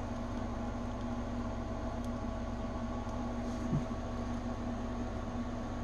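Steady low hum with hiss, room tone with a constant electrical or fan-like drone, and one faint soft knock a little after halfway.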